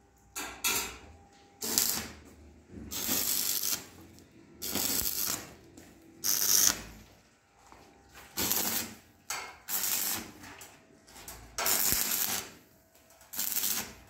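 Electric arc welding on steel: about ten short welds, each a crackling hiss of under a second, with brief pauses between them as the stand is tacked onto a washing-machine drum.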